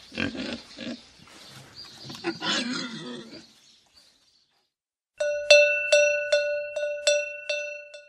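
Pig noises for about three and a half seconds. After a short silence comes a cowbell rung about eight times in quick succession, roughly three strikes a second, each ringing briefly: the page-turn signal.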